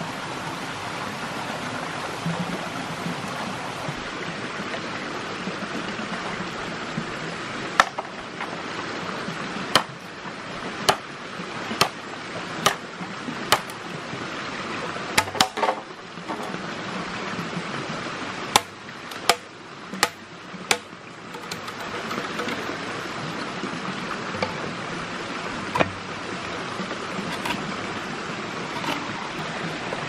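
Steady rushing of a stream, broken through the middle by a dozen or so sharp knocks, a few at a time.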